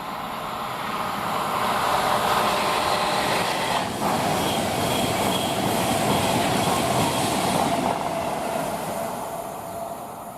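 A train passing by on the main line: the rumble of its wheels on the rails swells over the first two seconds, holds, and fades away near the end.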